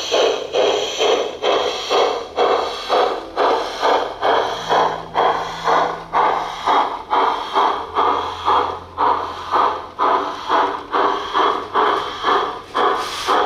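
Simulated steam-exhaust chuffing from the LGB 28002 Rügen G-scale 0-8-0 locomotive's onboard sound system, an even beat of a little over two chuffs a second.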